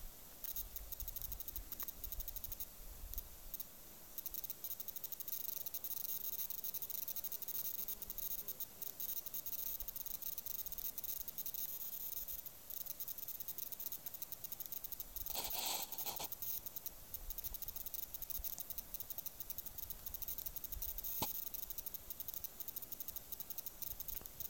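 Faint steady hiss with low rumbles on a phone's microphone, a brief noisy burst lasting about a second some fifteen seconds in, and a single sharp click near the end.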